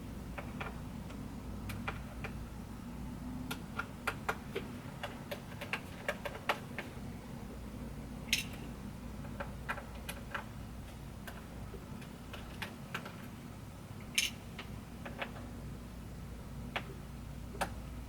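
Small irregular clicks and ticks of a screwdriver working the laptop's bottom case screws and of small parts set down on the bench, with a few sharper clicks among them, over a steady low hum.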